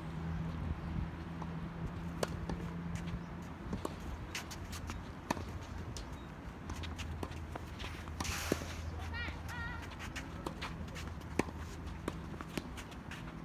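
Sparse, sharp knocks of a tennis ball being bounced and struck with a racket on the court, faint against a steady low rumble of wind.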